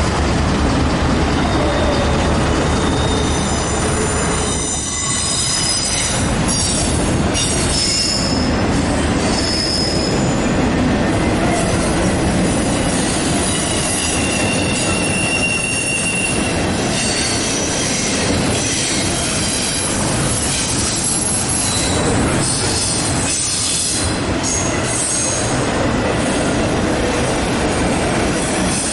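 Intermodal freight train rolling past, its wheel flanges squealing on the rail in thin high tones that come and go over a steady rumble of wheels and cars. A CSX diesel locomotive's engine is heard near the start as it goes by.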